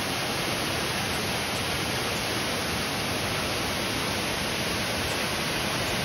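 Waterfall pouring into a pool: a steady, even rush of falling water with no change in level.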